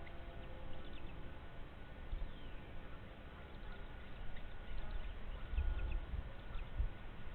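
Faint, short bird chirps scattered throughout, over a low rumble of wind.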